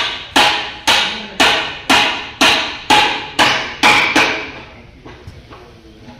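Hammer blows struck steadily, about two a second, each with a short ring, nine or ten strikes that stop a little over four seconds in; a few faint light taps follow.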